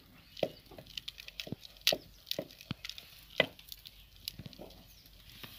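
Wooden masher churning saag in an aluminium pot, knocking irregularly against the pot, as maize flour is worked in to thicken it. The loudest knocks come about two seconds in and again about three and a half seconds in.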